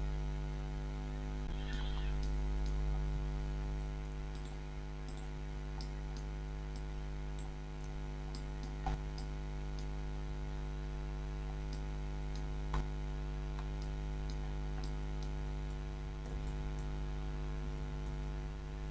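Steady electrical mains hum from the recording setup, with faint scattered computer mouse and keyboard clicks and two sharper clicks, one about halfway through and one about two-thirds through.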